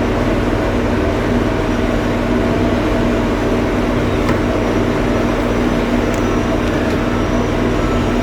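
Steady mechanical hum with several held tones, at an even level throughout, with a couple of faint clicks midway.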